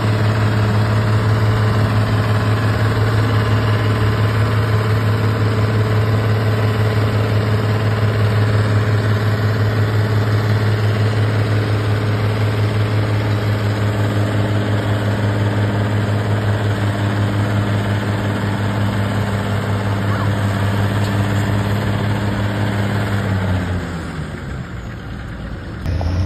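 Vintage farm tractor's engine running hard at steady high revs, pulling under load down a tractor-pull track. About three-quarters of the way through, the revs wind down and the engine note falls away.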